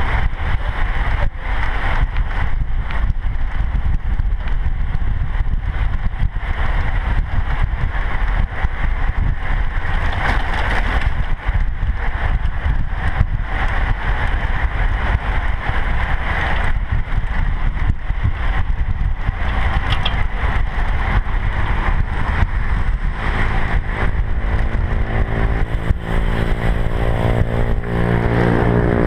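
Wind buffeting the microphone of a camera riding on a moving road bicycle: a steady, loud rush with gusty flutter. Near the end, a humming tone joins in and rises in pitch.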